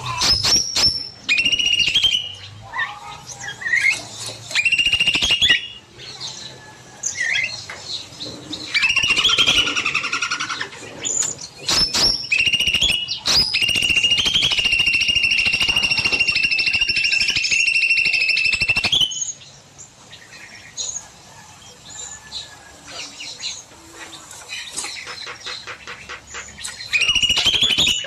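Birds in an aviary calling and singing: short chirps and whistled phrases, and a long rapid trill lasting about five seconds around the middle.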